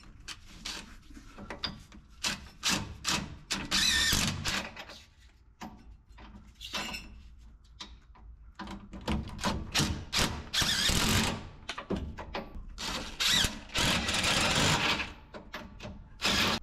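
Cordless impact wrench with a long socket extension running in repeated short bursts, rattling as it runs nuts down on the front suspension of a Ford Transit.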